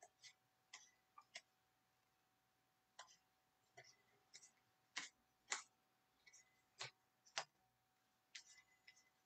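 Stack of baseball trading cards being flipped through by hand, each card giving a short crisp click as it is slid off the stack. About a dozen irregular clicks, with a pause of a second or so near the start.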